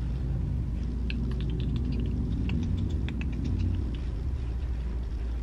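Irregular light clicks and taps from handling a makeup brush and powder products, over a steady low hum.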